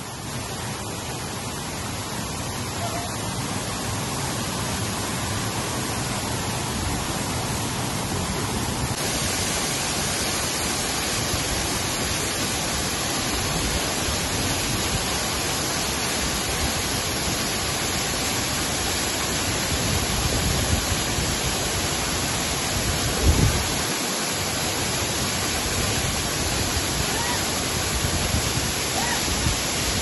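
Rushing water of a mountain stream and waterfall: a steady, unbroken hiss of falling water. It turns brighter about a third of the way in, and there is one brief low thump about three-quarters of the way through.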